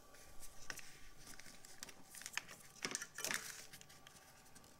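Faint rustling and a few light clicks of gloved hands handling the throttle cable and nearby hoses in the engine bay, working the cable out of its holding tabs.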